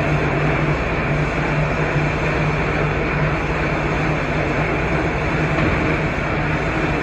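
Blanchard 72HD-120 rotary surface grinder running with its 120-inch rotary table turning: a steady machine rumble with a strong low hum.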